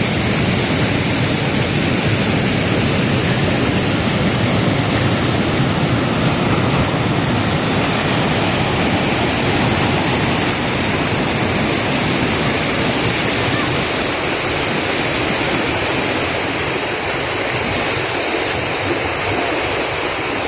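River rapids rushing and churning over rocks in a steady, loud roar of water, easing slightly in the last few seconds.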